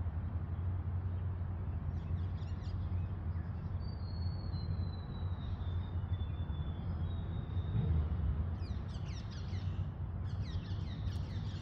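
Open-air ambience: a steady low rumble, with birds chirping in quick downward-sweeping calls about two seconds in and again through the last few seconds. A faint thin high whistle drifts slightly downward in the middle.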